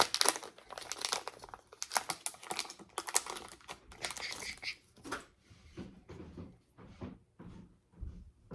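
Foil trading-card booster pack wrapper crinkling and crackling as it is handled and torn open, then quieter rustling for the last few seconds.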